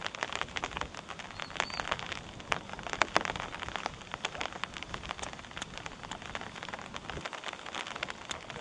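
Rain pattering close to the microphone: a dense, irregular crackle of drops over a steady hiss.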